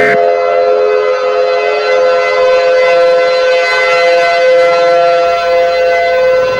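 A loud, steady multi-tone siren, several pitches sounding together and drifting slowly. A last short burst of EAS data tones cuts off right at the start.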